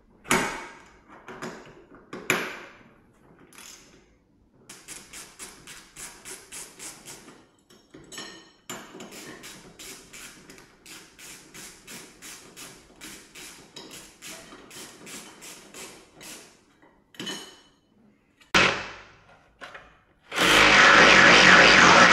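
Workshop tool sounds: two sharp knocks, then a long run of even taps at about three to four a second. Near the end a loud, steady rushing noise starts abruptly.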